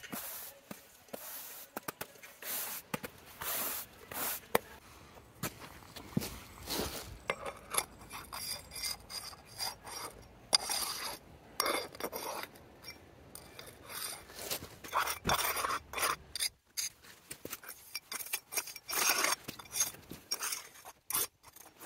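Stiff push broom and a small pointing tool scraping over wet stone paving slabs, working sandy jointing compound into the joints in many irregular rasping strokes.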